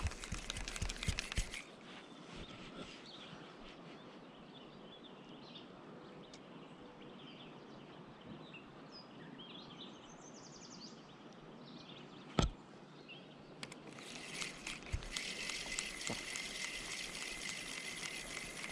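Quiet outdoor ambience by a calm river with faint bird chirps. It opens with a second or so of bumping and rubbing from a hand at the microphone and has one sharp click just past the middle. A dense, raspy buzz sets in a few seconds before the end.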